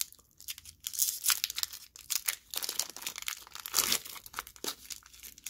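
Foil wrapper of a Pokémon trading-card booster pack crinkling and tearing as it is ripped open by hand, a run of irregular crackles.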